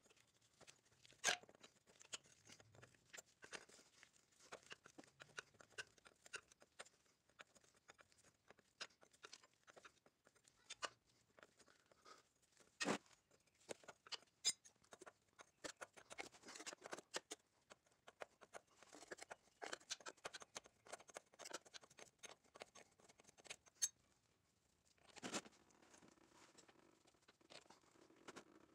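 Faint, irregular clicks and light metal taps of a wrench working on the power-steering line fittings of a rack and pinion. A couple of sharper clicks stand out, and there is a short scraping rustle near the end.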